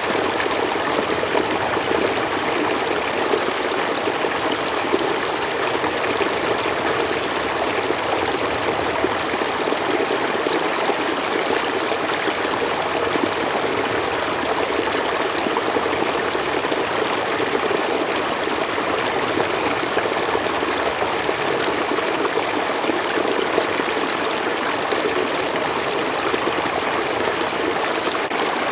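Forest stream or small river flowing over rocks: a steady rushing and babbling of water with no break or change.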